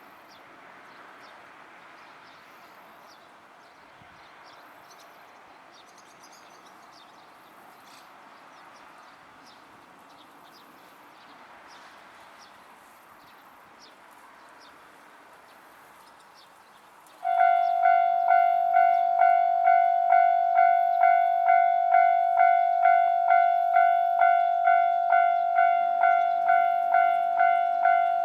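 Japanese railway level-crossing warning bell, electronic, switching on suddenly after a long quiet stretch and then ringing in evenly repeated dings, a little more than one a second. It signals that a train is approaching and the crossing is closing.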